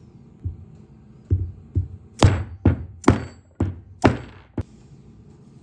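Mallet blows driving the air screwdriver's ball bearing and spindle down into a support block, about nine knocks roughly half a second apart. The middle ones are loudest and sharpest, with a brief metallic ring.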